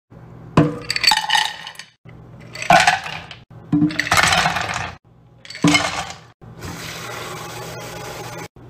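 Ice cubes tipped into a saucepan in several loud clattering dumps, then water from a kitchen tap runs steadily onto the ice near the end.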